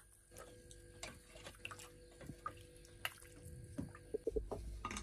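Scattered light drips and small clicks of water, over a faint steady hum.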